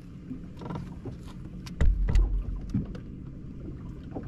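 Bass boat on the water: a steady low hum with a few light clicks, and a heavy low thump about two seconds in.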